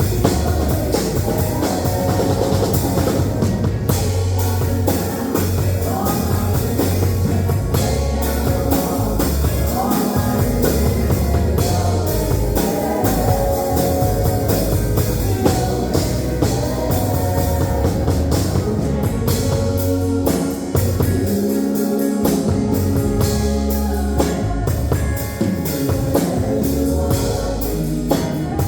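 A band playing a worship song: drum kit, guitar and bass with sung vocals.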